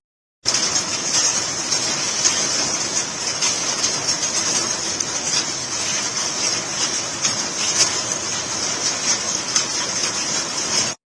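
Heavy rain pouring down in a dense, steady hiss with scattered patters, cutting out sharply just before the end.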